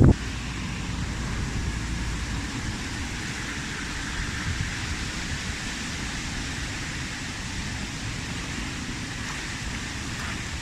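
Steady wind with a low rumble of wind on the microphone and a soft hiss, opening with a short, loud gust buffeting the microphone.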